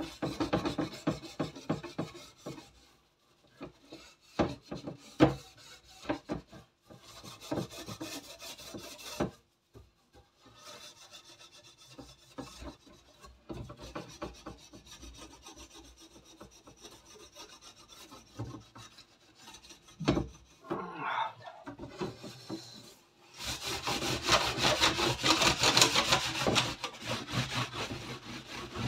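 Steel wool scrubbing a wire oven rack to scour off the heaviest grime, in uneven runs of rasping strokes. The scrubbing is softer in the middle and quickest and loudest for about five seconds near the end.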